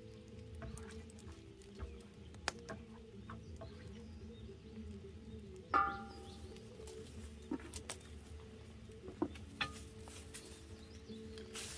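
Wood fire crackling in a firebox under a cast iron cauldron, with scattered sharp pops. About six seconds in, one loud metal clank that rings briefly as the heavy cauldron lid is shifted with a wooden paddle.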